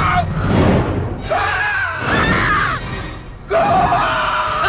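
Long, loud, held screams in a horror film clip. One runs from just over a second in to under three seconds, and another starts about three and a half seconds in. Both sound over dense film score and crashing noise.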